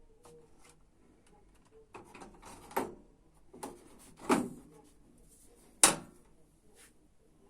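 Handling noises from a washing machine repair: scraping and rustling with three sharp knocks about a second and a half apart, as parts or panels are handled and set down.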